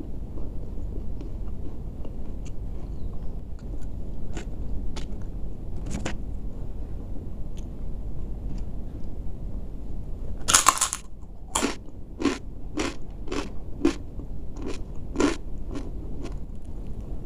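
Close-up eating sounds: faint mouth clicks and smacks at first, then a loud crunching bite into crisp food a little past halfway, followed by about eight crisp chewing crunches, roughly two a second. A low steady hum runs underneath.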